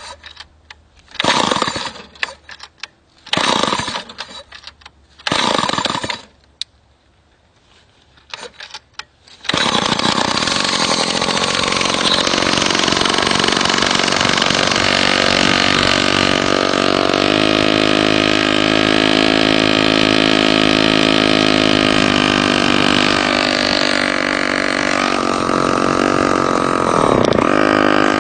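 Two-stroke chainsaw engine driving a bicycle, cold-starting: four short pulls of the starter cord, a pause, then the engine catches about nine seconds in and runs steadily. Its pitch shifts as the throttle is worked, dipping and rising again near the end.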